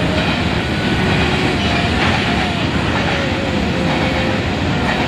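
Freight train wagons rolling past on the tracks: a steady, loud rumble of steel wheels on rails.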